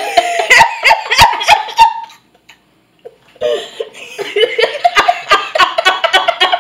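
Several people laughing hard in loud, high-pitched bursts, breaking off for about a second in the middle and then laughing again.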